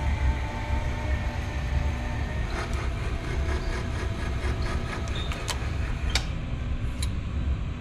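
Electric motor of a valve-seat cutting machine running with a steady hum over a low rumble. A few sharp metal clinks come in the second half.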